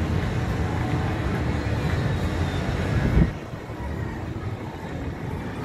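Steady low rumble of distant city traffic. About three seconds in there is a thump, and after it the rumble is quieter.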